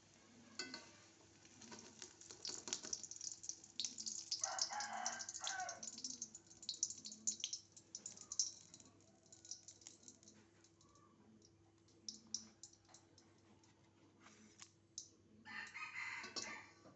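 A rooster crowing twice, about four seconds in and again near the end, each crow lasting about a second and a half, over a fast crackling of small clicks.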